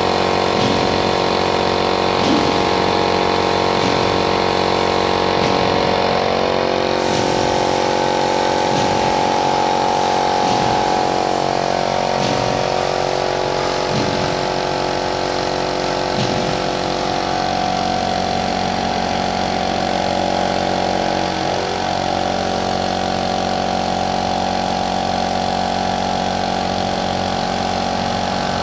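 Air compressor running steadily to feed a gravity-feed paint spray gun, with the even hiss of the gun spraying paint onto a steel railing.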